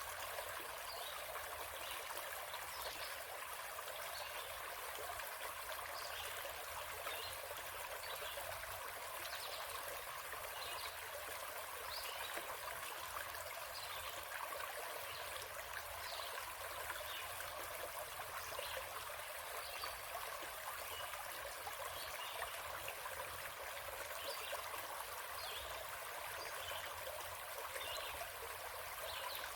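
A forest stream running and trickling steadily, with brief higher splashy trickles scattered through it.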